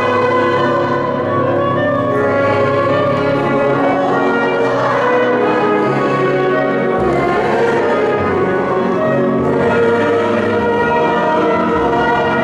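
Mixed choir singing sustained classical lines, accompanied by a small ensemble of violin, clarinet and keyboard.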